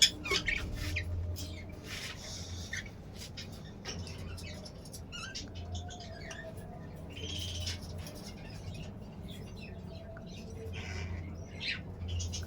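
Budgerigars giving short, scattered chirps, squawks and clicks, with a few louder chirps spread through.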